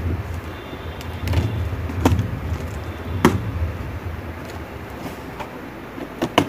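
Cardboard shipping box being opened by hand: packing tape pulled and the flaps handled, with a low rumble from the box being worked and several sharp crackles and taps. The loudest tap comes about three seconds in, and a quick double tap comes near the end.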